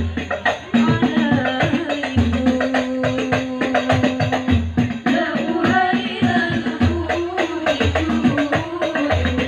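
Sholawat Al-Banjari music: women's voices singing an Arabic devotional melody in unison over a steady rhythm of hand-beaten terbang frame drums, with deep bass drum strokes recurring about every second.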